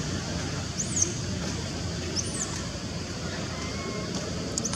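Outdoor ambience of a steady low rumble and an even high hiss, with three short high chirps spread through it.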